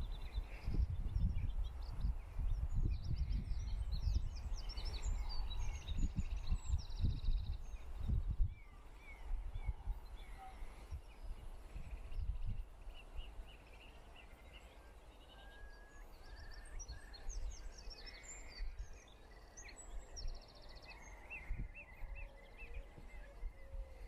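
Wind buffeting the microphone in gusts for the first eight seconds or so, then easing. Several small songbirds sing and call in quick trills and chirps throughout.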